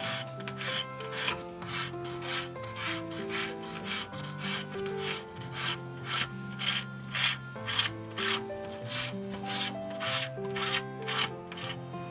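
A hand tool scraping and rasping a boxwood spoon blank in short, even strokes, about two or three a second. Soft background music with held notes plays underneath.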